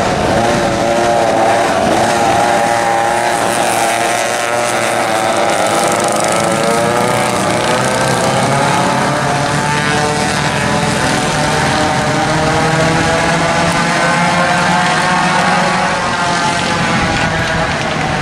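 A pack of vintage racing karts, McCulloch MC49 two-stroke and flathead engines, running at high revs together, several engines overlapping. Their pitch keeps rising and falling as the karts pass, lift off and accelerate around the track.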